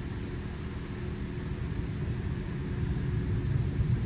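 PDQ LaserWash 360+ touchless in-bay car wash machinery running: a steady low rumble with a constant motor hum, growing a little louder near the end.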